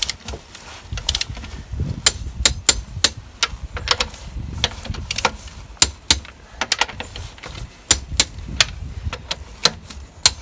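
Torque wrench ratcheting as rear wheel nuts are tightened to 100 Nm: irregular sharp metallic clicks, some in quick runs, as the handle is swung back and forth and the socket is moved from nut to nut.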